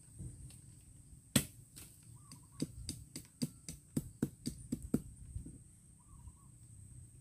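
A quick run of about a dozen short, sharp knocks or snaps, the first the loudest, coming about four a second and then stopping, over a steady high-pitched insect buzz.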